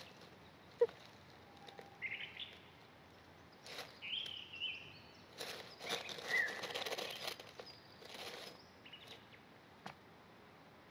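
Birds chirping a few short times, with soft bursts of rustling noise and one sharp click about a second in.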